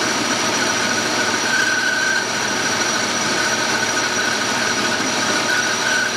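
Metal lathe running with its chuck spinning while a cutting tool turns a small pin, a steady machine hum with a high tone that comes and goes from the cut.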